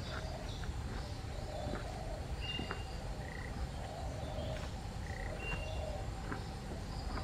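Frogs calling outdoors: short chirping calls repeating every second or so over a steady low background rumble.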